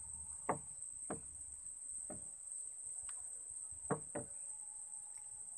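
Steady high-pitched drone of an insect chorus, with five short knocks over it, the loudest about half a second in and again about four seconds in.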